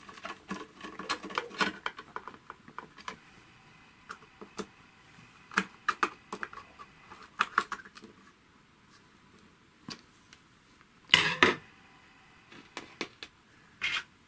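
Screwdriver tightening screws on a Necchi 559 household sewing machine: irregular small metallic clicks and taps, busiest in the first couple of seconds, with a louder metal clatter about eleven seconds in.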